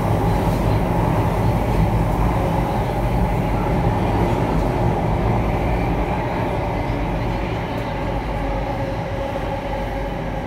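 Interior sound of an Alstom Metropolis C830 metro train running through a tunnel: a steady rumble of wheels and running gear with a faint whine over it, easing slightly in loudness over the last few seconds.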